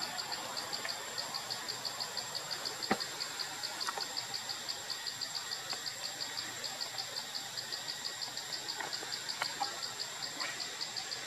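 Forest insects chirping in an even rhythm, about five high chirps a second, over a steady high whine. A few sharp clicks sound over it, the clearest about three seconds in.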